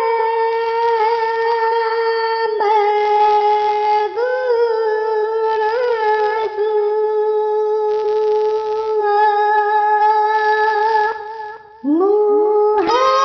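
Long, drawn-out, high-pitched vocalizing held on one steady pitch, with upward swoops at the starts of phrases. It breaks briefly about four seconds in, again a little past six seconds, and near the end before a new rising phrase begins.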